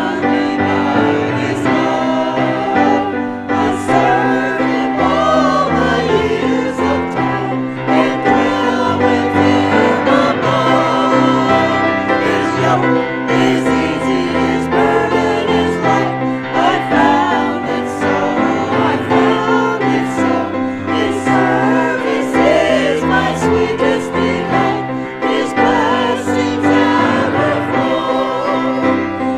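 A small church choir of mixed voices singing a hymn together, accompanied by piano.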